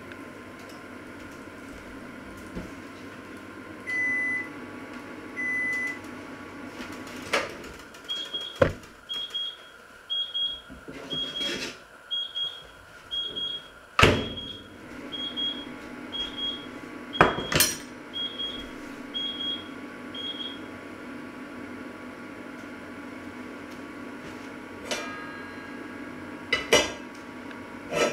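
Electronic beeping from a kitchen appliance: two longer beeps, then a steady run of about fifteen short, higher beeps a little under one a second. Sharp clatters of metal utensils against a pan fall among them, and a steady low hum runs underneath.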